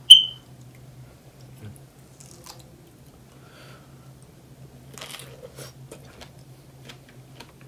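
A ceramic bowl clinks once sharply with a short ring at the start, then soft chewing and biting sounds as a fresh strawberry dipped in Tabasco sauce is eaten.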